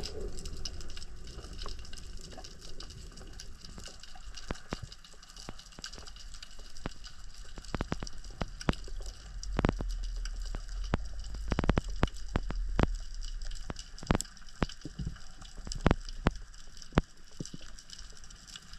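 Underwater sound recorded on a swimming freediver: a low rumble and hiss of water moving past the microphone, with scattered sharp clicks and knocks coming irregularly, thickest in the second half.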